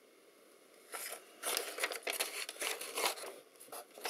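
A folded paper datasheet rustling and crinkling as it is handled and turned over, in a run of crackly bursts starting about a second in.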